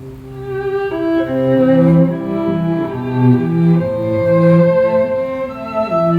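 Bowed string music, cello and violin playing sustained, overlapping melodic notes that change pitch every half second to a second. It is played back as a sound test through an FX Audio Tube 03 tube preamp and Edifier 1280 speakers.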